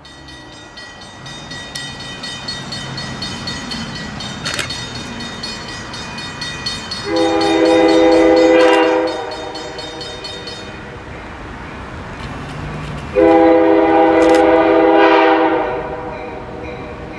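Approaching diesel freight locomotive sounding its multi-tone horn in two long blasts, each about two seconds, several seconds apart. Under the horn the sound of the oncoming train grows steadily louder.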